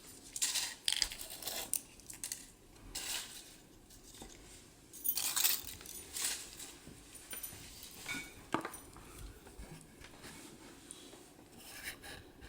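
Hands handling chocolate surprise eggs and their plastic toy capsules: irregular small clicks, clinks and rustles, with a sharper knock about eight and a half seconds in.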